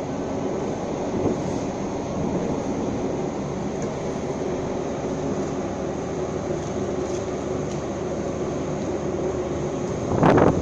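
Crane machinery running with a steady drone of several held low tones while it lifts a heavy load. A louder burst of noise comes right at the end.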